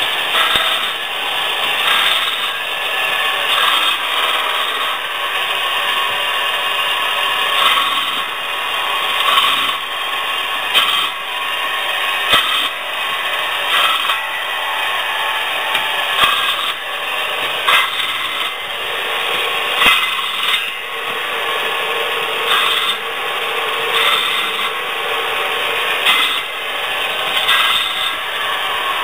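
Electric motor of a branch chipper running steadily, driving its circular saw blade through branches, with a louder cut every second or two as each branch is sawn into short lengths.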